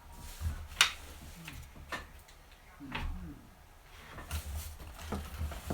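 Parts of a beehive kit being handled and unpacked: a few sharp clicks and knocks, the loudest about a second in, with some rustling of packaging.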